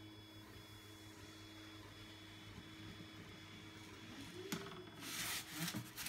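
Two 3D printers running with a steady low hum and faint steady tones. About four and a half seconds in there is a sharp click, then a loud scraping rustle as the Styrodur foam block is shifted across the hot-wire cutter's table.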